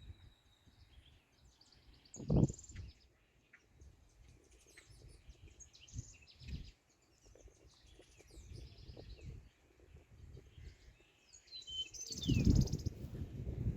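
Songbirds chirping and calling, with one falling whistled note near the end. A low thump comes about two seconds in, and from about twelve seconds in, gusts of wind rumble on the microphone.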